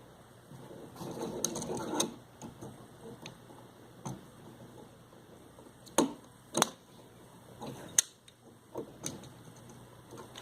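Pliers working the stripped copper wire ends, squeezing them into hooks for the outlet's screw terminals: a stretch of rustling handling about a second in, then scattered sharp metallic clicks.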